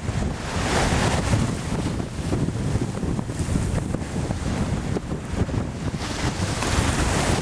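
Wind buffeting the microphone over the steady rush of sea water around a sailing boat.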